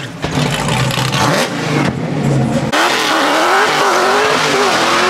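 Drift car's engine revving hard with the pitch rising and falling rapidly, over the hiss of spinning tyres, as it does a smoky burnout and slides away sideways.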